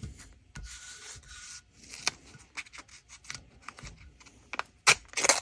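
Blue painter's masking tape being drawn off the roll and rubbed down by hand onto a shotgun's aluminum receiver: about a second of hiss soon after the start, then scattered short rubs and crackles, with a louder rasp near the end.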